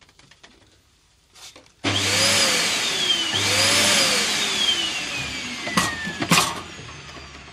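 A household canister vacuum cleaner, its inrush-current soft-start circuit removed, starts abruptly at full power about two seconds in. Its motor whine rises and falls twice, then falls slowly as the motor runs down. There are two sharp knocks near the end.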